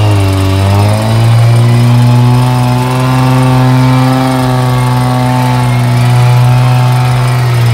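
Off-road 4x4's engine held at steady high revs, one constant droning pitch, as the vehicle crawls up a mud slope on its winch line.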